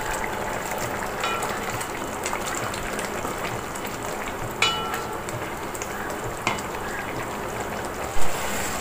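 Pineapple and jaggery mixture boiling and sizzling steadily on high flame in a metal uruli, as the jaggery syrup cooks down. A few light clinks of a wooden spatula against the metal vessel, with a louder knock near the end.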